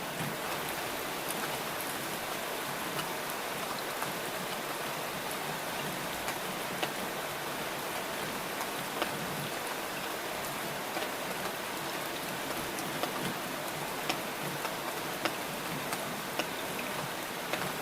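Steady rain falling: a dense, even hiss with many sharp drop ticks scattered irregularly through it.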